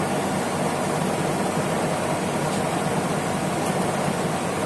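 Steady background noise, an even whoosh like a running fan, with no distinct events.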